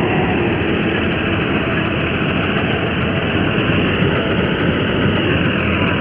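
John Deere combine harvester running steadily while cutting rice, its engine and machinery giving a loud, even noise with no pauses.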